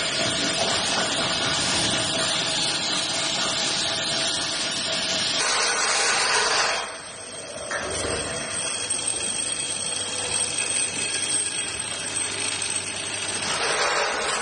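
Automatic drilling-and-tapping machine running, a steady mechanical hiss with faint ringing tones through it. About seven seconds in it drops to a quieter, low steady hum from the vibratory bowl feeder as it feeds steel shafts, then grows louder again near the end.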